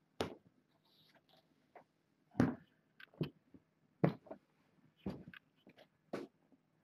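Irregular knocks and scrapes from litter boxes being handled and scooped: about nine short sharp sounds at uneven intervals, the loudest a little over two seconds in and about four seconds in.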